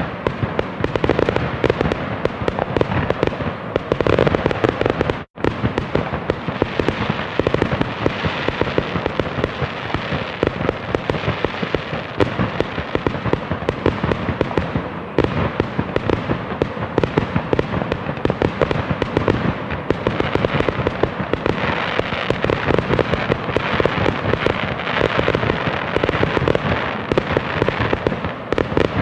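Fireworks going off continuously: many overlapping bursts, bangs and crackles in a dense barrage. The sound cuts out for a split second about five seconds in.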